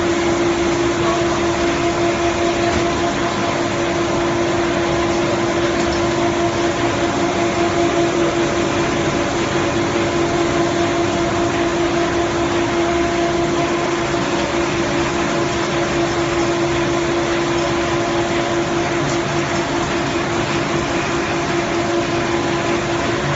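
Fried snack (bugle chip) processing line machinery running: a steady motor hum with a constant mid-pitched tone over a dense whirring noise, unchanging throughout.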